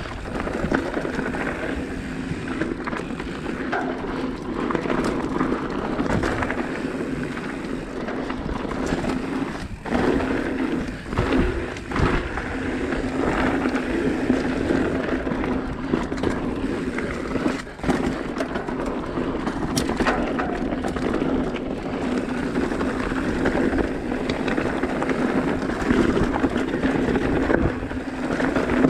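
Mountain bike rolling over a rocky trail: continuous tyre noise with a steady low hum, and frequent knocks and rattles from the bike over rocks.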